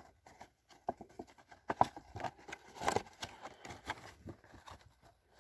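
A smoke detector's retail box being handled: irregular taps, scrapes and rustles, loudest about two and three seconds in.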